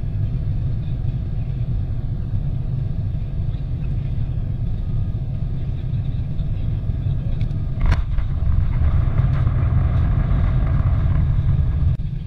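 Airliner cabin noise on final approach: steady low engine and airflow rumble. About eight seconds in, a thump as the wheels touch the runway, followed by a louder rushing rumble of the landing roll.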